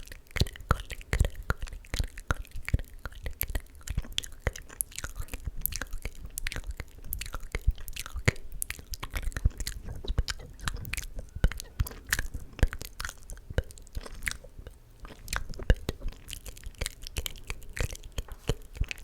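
Close-miked ASMR mouth sounds: quick, irregular wet clicks and smacks of tongue and lips, several a second, with no clear words.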